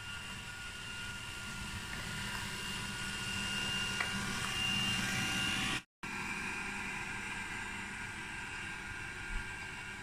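Xiaomi Mi Robot Vacuum 1C running on a hard tiled floor, a steady whir of its motor and brushes. It grows a little louder over the first five seconds and cuts out for a moment just before six seconds in.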